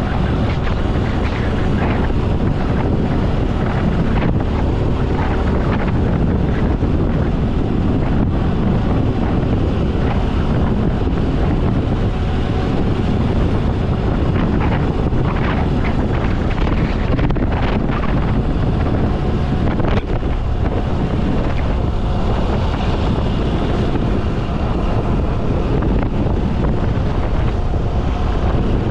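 Heavy wind buffeting the microphone of a moving motorcycle, with the motorcycle's engine running steadily underneath.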